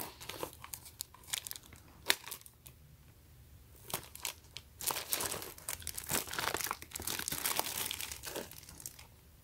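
Plastic shrink wrap on a toy box crinkling and crackling as hands grip and turn the box. The crackles are sparse at first and come thick and fast through the second half.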